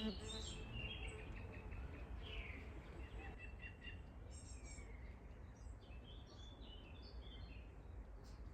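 Faint songbirds chirping and whistling in scattered short calls, a few of them falling in pitch, over a steady low outdoor rumble. An insect's buzz breaks off right at the start.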